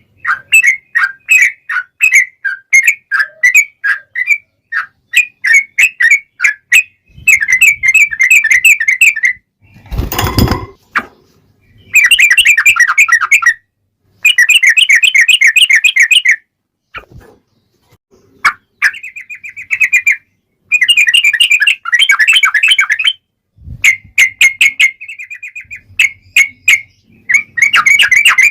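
Yellow-vented bulbul (trucukan) singing: loud bubbling phrases of quick warbled notes in runs of a second or two, with short pauses between. A brief noisy burst cuts in about ten seconds in.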